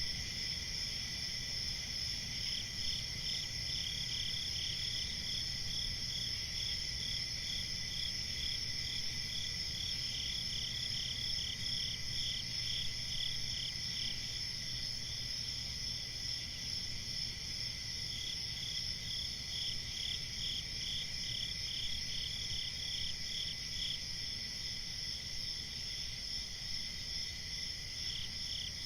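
Night chorus of crickets chirring steadily, with a pulsing trill that comes and goes in bouts over it.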